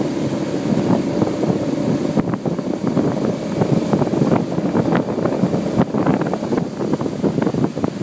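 Small duck boat running fast under motor, with wind rushing over the microphone and many short, irregular slaps and splashes of water against the hull.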